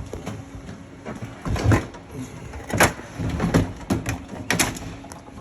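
Pinball machine playfield being lowered and seated back into its wooden cabinet: a series of knocks and clunks from the playfield and its metal parts, the sharpest about three and four and a half seconds in.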